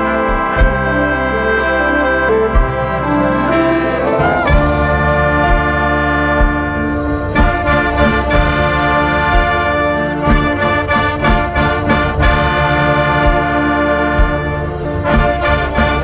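A live band with brass and saxophones playing sustained chords over a steady drum beat of about one low hit a second, with a rising glide about four seconds in.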